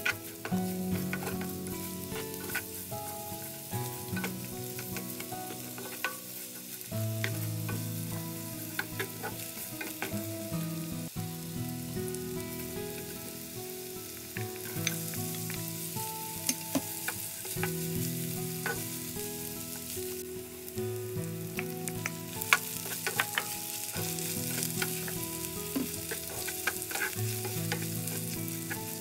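Julienned carrots sizzling in oil in a nonstick frying pan, stirred with a wooden spatula that scrapes and clicks against the pan. About halfway through, fried balls are tipped into the pan and the sizzling grows louder and brighter.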